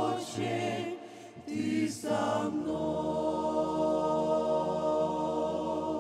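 A mixed group of men's and women's voices sings into microphones in close harmony, breaking briefly about a second in. They then hold one long final chord, the close of the worship song.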